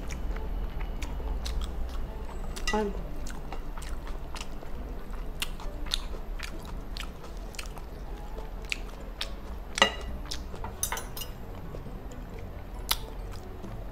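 Eating sounds: scattered clicks and taps of a wooden spoon and fork on a glass bowl as fried rice is scooped onto crisp dried seaweed, with chewing. One sharper click stands out about two-thirds of the way through.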